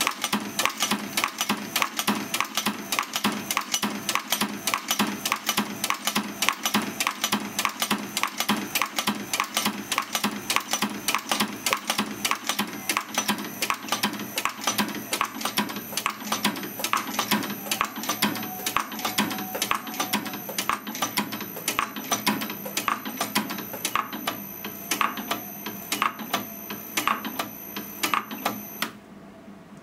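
Eminence 6K projectile sizer running, with a fast, regular mechanical clicking as its punch and transfer bar push .38 Special semi-wadcutter bullets through the sizing die, over a steady high whine from its motor drive. The clicking slows somewhat in the second half as the speed is turned down. It stops abruptly near the end when the machine is switched off.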